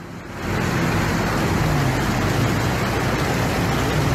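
Fast-flowing floodwater rushing through a street: a steady, loud rush of noise that comes in about half a second in, with a low hum underneath.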